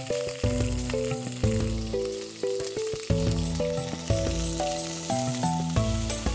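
Chicken pieces searing in hot oil in a stainless steel pan, sizzling steadily, under background music with a melody and bass notes that change about every second.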